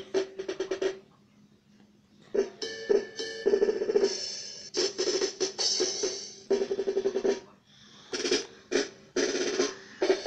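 Baby Einstein Music Explorer toy playing short electronic drum clips through its small speaker, fast snare rolls and cymbal hits over a steady tone. They come in about six bursts of a second or two, with short gaps between them.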